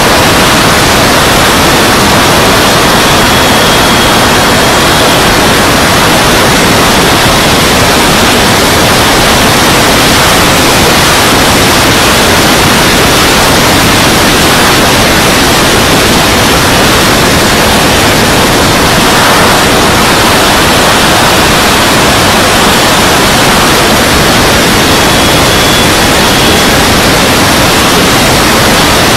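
Loud, steady rushing noise from a camera mounted on a radio-controlled model jet in flight: airflow over the microphone mixed with the jet's engine. A faint high whine rises out of it twice.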